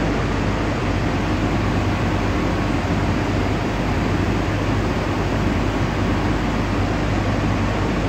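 Steady industrial machinery drone with an even rushing noise and a low hum underneath, unchanging throughout.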